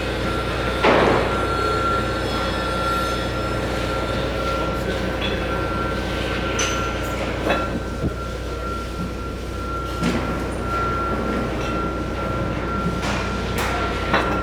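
Concrete truck's engine running steadily, with a low hum and a constant high whine, and a few sharp metallic knocks and clanks scattered through.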